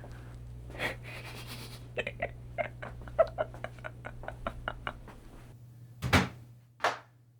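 A run of quick, light clicks, about five a second, over a steady low hum. Near the end come a short knock and then a brief cat meow.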